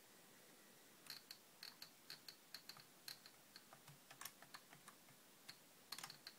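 Typing on a computer keyboard: irregular key clicks start about a second in, thin out, then come in a quick flurry near the end.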